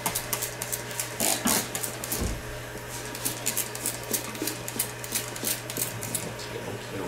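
Hand-held spray bottle squirting onto a cat's fur: a quick run of short hissing sprays in the first couple of seconds, then further sprays spaced out, over a steady low hum.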